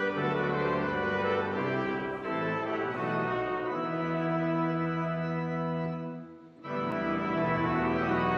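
Pipe organ playing a hymn tune in sustained full chords, with a brief break between phrases about six and a half seconds in before the next phrase begins.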